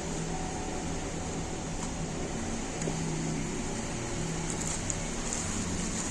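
Steady mechanical hum with a constant hiss and a low drone that wavers in and out.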